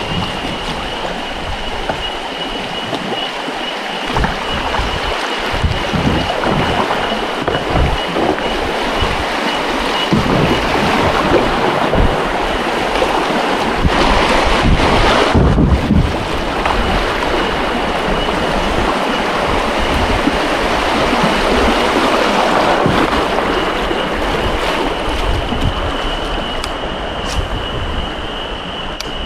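Fast-flowing river water rushing past, a loud steady rush, with a steady high-pitched tone over it.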